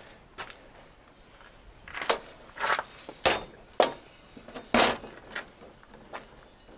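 A run of short, sharp scuffs and knocks from handling work gear, about five in three seconds, the loudest near the end, then a few fainter ones.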